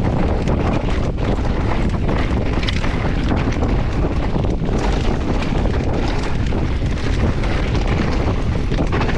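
Wind rushing over the microphone of a camera riding along on a moving mountain bike, with a steady low rumble from the trail and scattered knocks and rattles as the bike goes over bumps.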